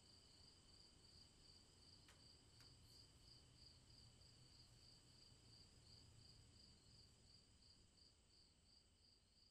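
Very faint insect chirping: a steady, high pulsing trill over a low rumble, with two faint clicks about two seconds in. The whole is close to silence.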